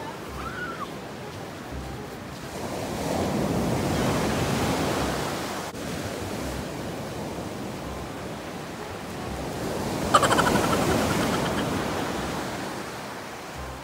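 Ocean waves breaking on a beach, a steady wash of surf that swells twice, once a few seconds in and again near the end.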